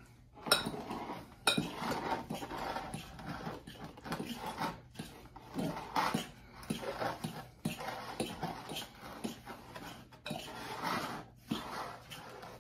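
A fork stirring chunky tuna salad in a bowl, working in a spoon of mustard. It makes irregular scrapes and soft clinks against the bowl that keep going without a break.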